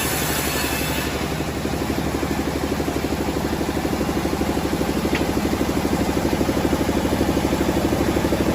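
An engine running steadily at idle, with a rapid, even chugging pulse; a high hiss stops about a second in.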